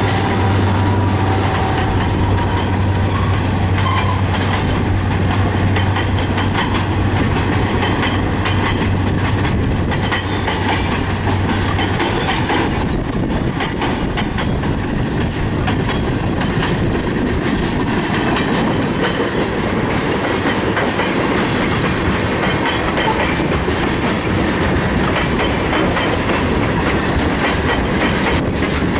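Diesel freight locomotive's engine hum as the locomotive passes, dying away about twelve seconds in. Loaded freight cars then roll past close by, the wheels clicking steadily over the rail joints with a loud rolling rumble.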